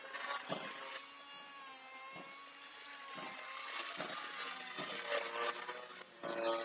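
Electric forge blower running with a steady whir and a wavering whine. A handful of sharp clicks or knocks come through it.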